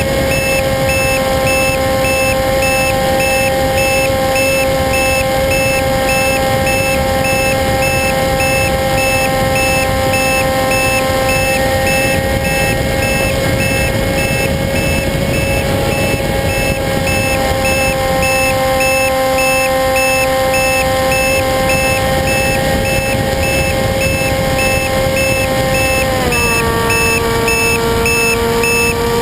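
RC plane's motor running at steady throttle, a constant whine over rushing noise, stepping down slightly in pitch near the end. A faint, regular high-pitched beeping runs underneath.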